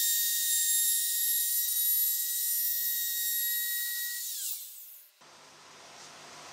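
Compact trim router (Ridgid R2401) running at full speed with a steady high whine as it trims the edge of a guitar neck blank. About four seconds in it is switched off, and its whine falls away as the motor spins down.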